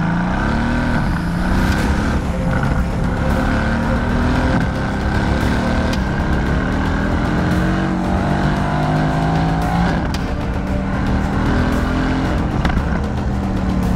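Mercedes-AMG GT's twin-turbo V8 being driven hard on track, its engine note climbing and dropping repeatedly as it revs up and shifts.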